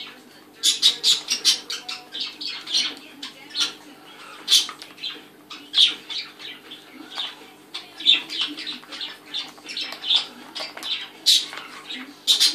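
An African grey parrot rummaging through toys in a plastic basket: a run of irregular clicks and rattles, several a second, as the toys knock against each other and the basket.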